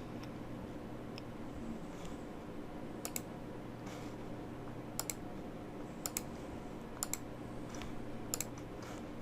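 Quiet clicking of a computer mouse and keys while editing an image: a few short, sharp clicks, often in quick pairs, spaced about a second apart in the second half, over a faint steady hum.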